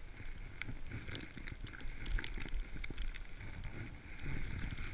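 Movement over snow: a continuous low rumble with scattered crackles and clicks, with wind noise on the microphone.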